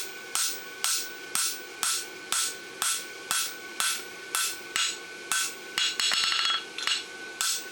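Hand hammer striking hot steel on an anvil, about two blows a second, creasing the fuller groove into the branch of a forged horseshoe, with a steady metallic ring between strikes. About six seconds in there is a quick flurry of lighter strikes.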